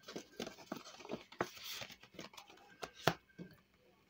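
Paper handling at a desk: pages and a pocket of a ring-bound savings planner being moved and flipped, with cash slid in. Scattered rustles and light clicks, with a sharper click about three seconds in.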